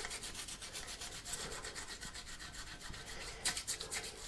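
Small plastic brush scrubbing the fine fins of the Enermax Liqtech TR4 AIO's copper cold plate in soapy water, with quick, even back-and-forth strokes and one louder stroke about three and a half seconds in; the fins are being scrubbed to clear gunk from their blocked channels.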